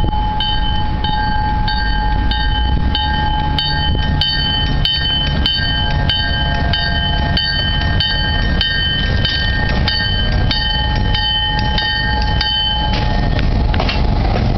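Canadian Pacific diesel locomotive 8205 approaching with its horn sounding a long, steady chord and a bell ringing at about one and a half strokes a second, over the low rumble of the engine and wheels. The horn and bell stop about a second and a half before the end, leaving the rumble.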